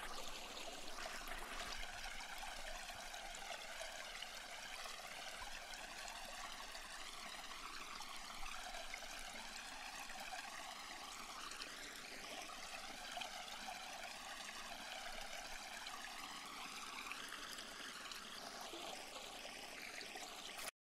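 Steady, fairly faint rush of running water with no distinct events.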